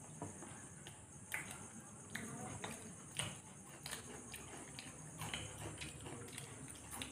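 Two people eating fried mughlai paratha with their hands from steel plates: faint chewing and mouth clicks with soft taps, irregular, about two a second.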